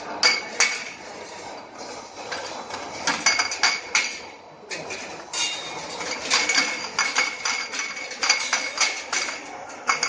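Empty glass jars clinking against one another as they are pushed along a conveyor and around a stainless-steel rotary jar turntable. The clinks come in a rapid, irregular stream, briefly thinning out near the middle and growing denser in the second half.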